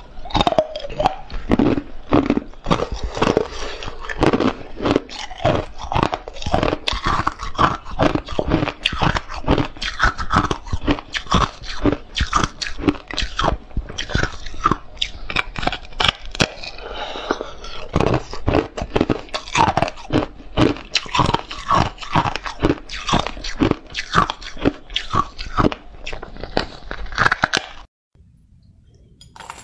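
Close-miked crunching and chewing of carbonated ice, the frosty, porous white ice bitten off a block: dense, irregular crisp crunches one after another. The crunching stops suddenly near the end.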